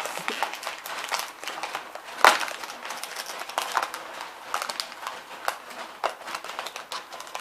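Plastic blind-bag packaging crinkling and crackling as it is handled and opened, with one sharp crackle about two seconds in.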